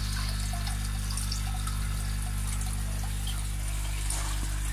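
Water trickling and splashing into a koi fry pond, over a steady low hum.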